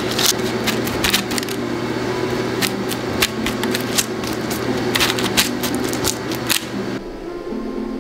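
Irregular sharp clicks and taps as a baking tray of freshly baked rolls is handled and glazed with a pastry brush, over a steady low hum. The hum stops about seven seconds in and light background music takes over.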